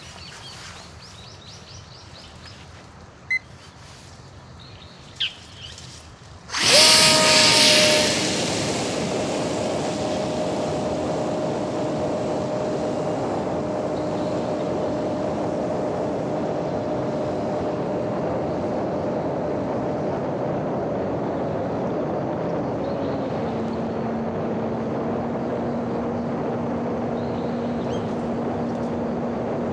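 Home-built RC airplane's small electric motor and propeller throttling up sharply about six seconds in for takeoff, with a loud rush, then running steadily with a high whine through the flight. The whine steps down in pitch about three-quarters of the way through as the throttle is eased back. Two short clicks come before the motor starts.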